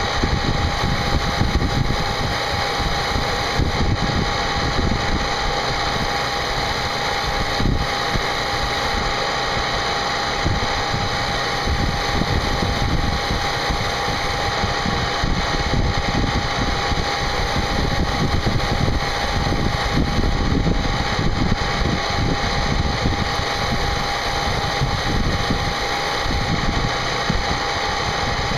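CNC machine running steadily while it machines a part, the cutting noise even throughout, with one steady tone above it.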